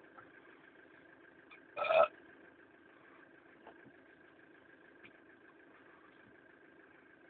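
Low steady hum of a van's engine idling, heard from inside the cabin, with one short loud noise about two seconds in.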